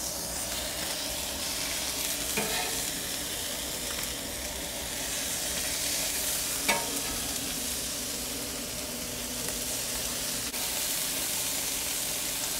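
Corn-tortilla carne asada tacos with melting cheese sizzling steadily on a hot Blackstone flat-top steel griddle, while a metal spatula folds them closed, scraping and tapping on the griddle twice.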